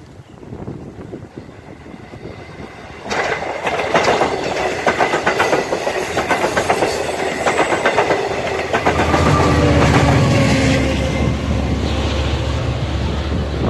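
Long Island Rail Road diesel push-pull train of bilevel C3 coaches passing close by at speed. About three seconds in the noise comes on suddenly, with rapid wheel clatter over the rail joints. From about nine seconds a deep, steady diesel engine drone joins, from the DE30AC locomotive going by.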